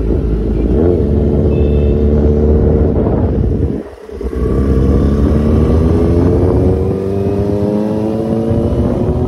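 Kawasaki Z900's inline-four engine through an SC-Project full exhaust, running loud under throttle while the bike is ridden. The sound briefly drops away about four seconds in, then the engine note climbs steadily in pitch as the bike accelerates.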